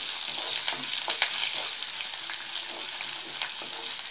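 Sliced onions with peanuts and chana dal sizzling in hot oil in a pan while being sautéed, a flat spatula scraping and tapping against the pan as they are stirred.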